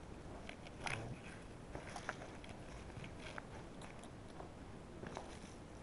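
Faint, scattered crunches and clicks of a person moving about and handling the camera, a few a second at most, over low background hiss.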